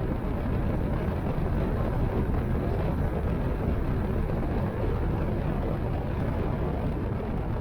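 Fishing boat running at speed across open water: a steady rush of motor, water and wind noise.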